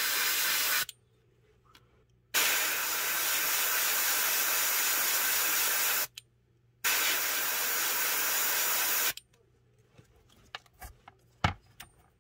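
Airbrush spraying paint in three bursts of steady hiss that start and stop sharply as the trigger is pressed and let go: one ending under a second in, one of about three and a half seconds, one of about two seconds. After that come a few light clicks and one sharper knock near the end.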